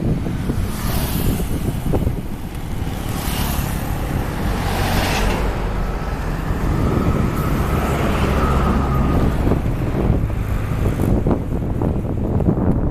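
Wind buffeting the camera microphone: a loud, continuous low rumble with a few hissing gusts that swell and fade in the first half.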